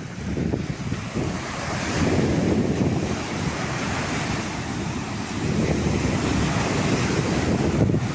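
Sea waves breaking and washing up a beach, with wind rumbling on the microphone. The surf swells louder about two seconds in and again past the middle.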